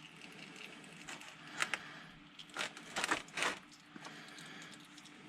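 Faint handling noises: a few short crinkling scrapes and clicks in the middle, over a low steady hum.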